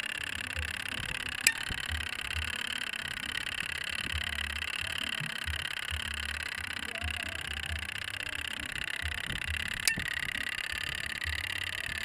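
Mechanical washing machine timer with a clear plastic case: a steady whirring hiss, with two sharp clicks, one about a second and a half in and one near the end.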